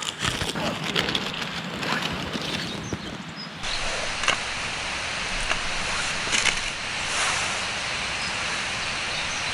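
Wood campfire crackling: a steady hiss with scattered pops and snaps. The sound changes abruptly about three and a half seconds in.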